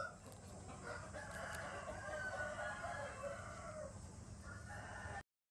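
An animal call held for several seconds and wavering in pitch, similar to a rooster crowing, over a low hum. It starts and stops abruptly.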